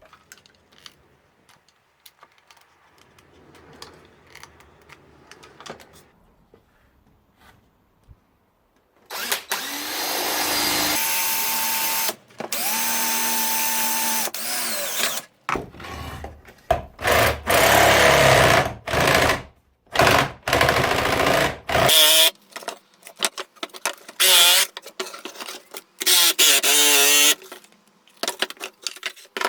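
Light handling clicks, then a power drill running in two steady spells, drilling through the chipboard table. After that comes a string of short, loud power-tool bursts cutting out the waste wood, stopping and starting every second or two.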